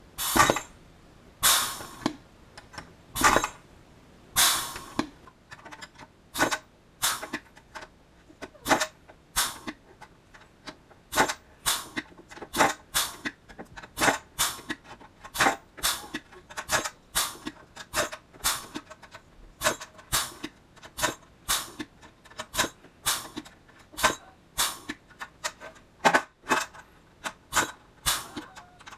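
Pneumatic rivet squeezer with dimple dies pressing dimples into thin aluminium sheet, a sharp clack with each stroke, about one or two a second. The first few strokes are louder, with a short hiss.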